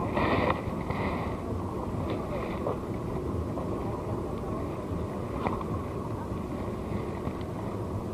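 Steady wind noise on the microphone over open sea, with a few faint short clicks, the clearest about five and a half seconds in.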